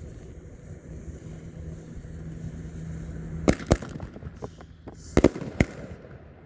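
Pyro Pirate 'Dirk' aerial ball shells being fired: four sharp bangs in two quick pairs, the first pair about three and a half seconds in and the second about five seconds in, with fainter pops between them.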